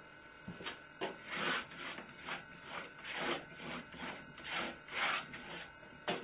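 Palette knife scraping and spreading paint in short, uneven strokes, about two a second.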